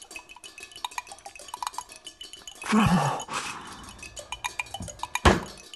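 Sparse metallic percussion in the soundtrack: light chime-like clinks and ticks. A loud breathy whoosh with a falling low tone comes about halfway through, and one sharp, loud strike comes near the end.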